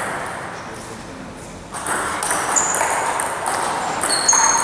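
Table tennis rally: the light plastic ball ticking off the rubber bats and bouncing on the table, louder and busier from about two seconds in, with a few short high squeaks near the end.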